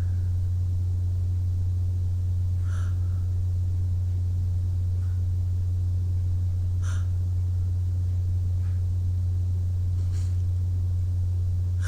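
A person taking a few short, soft breaths a few seconds apart, over a steady low hum.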